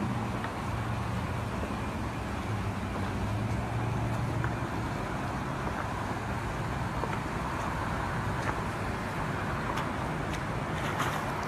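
A motor vehicle's engine running at low revs, over a steady hiss of noise. The engine hum is strongest in the first few seconds and comes back near the end, where a few sharp ticks are also heard.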